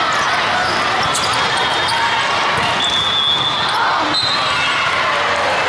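Steady din of a crowded volleyball tournament hall: many voices mixed with volleyballs being hit and bouncing, echoing off the hall.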